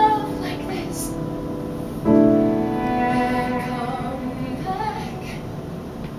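A woman sings a musical-theatre ballad live with piano accompaniment. A piano chord is struck about two seconds in and rings on under her voice, which glides between notes.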